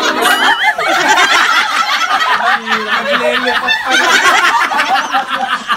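A group of people laughing together, several voices at once, with excited high-pitched squeals.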